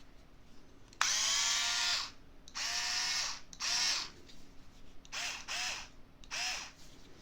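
Milwaukee M4 cordless screwdriver's small motor whirring in short trigger pulls: one run of about a second, then five shorter ones. Each whine rises as the motor spins up and drops as it stops.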